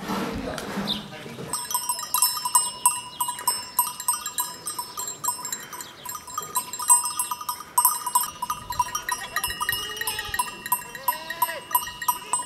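Bells on a grazing flock of sheep, clanking and ringing, each struck irregularly and overlapping the others. They start about a second and a half in.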